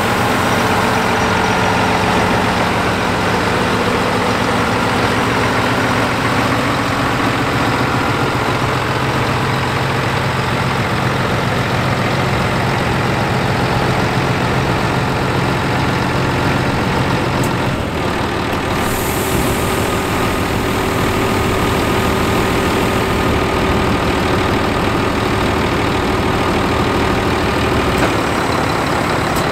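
Scania 124.420 tipper truck's 12-litre straight-six diesel engine idling steadily. A little past halfway a short click is heard and the engine's tone changes, then runs on steadily.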